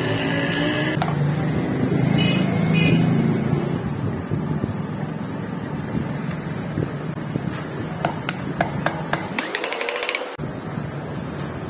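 Hammer strikes on a steel drift driving a ball bearing into a motorcycle wheel hub: a few separate taps about eight seconds in, then a quick run of rapid taps just before the tenth second. A steady low engine hum runs underneath.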